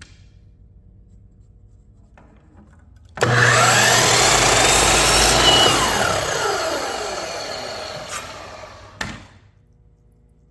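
Electric power saw starting abruptly and cutting wood for several seconds, then its blade coasting to a stop, the pitch falling as it slows. A sharp knock comes just after it winds down.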